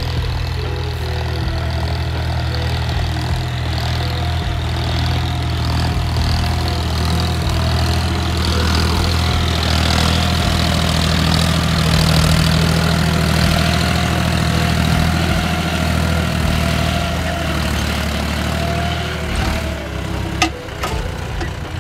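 John Deere tractor's diesel engine running steadily under load while pulling a disc plough through the soil. It grows louder as the tractor comes close around the middle, then eases off.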